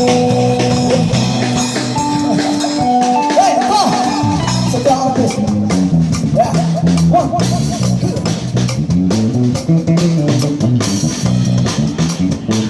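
Live busker band playing: a bass line, guitar and drum kit, with a voice wavering above the instruments.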